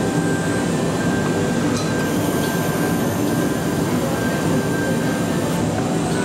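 Steady mechanical rumble of machinery running in a large exhibition hall, with a thin high tone coming and going.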